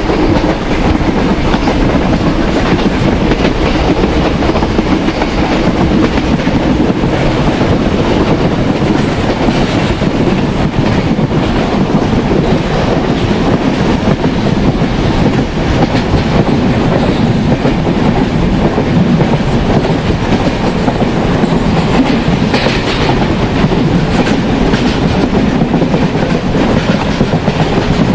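Indian Railways express passenger train running at speed: a loud, steady wheel rumble with the clickety-clack of wheels over rail joints.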